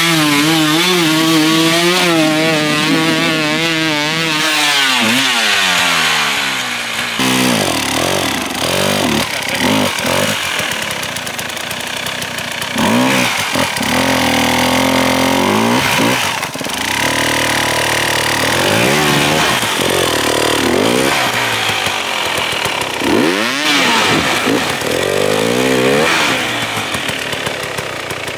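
Two-stroke enduro motorcycle engines revving hard. For the first seven seconds the engine is held high with a wavering pitch; then it changes abruptly to repeated throttle blips and revs rising and falling.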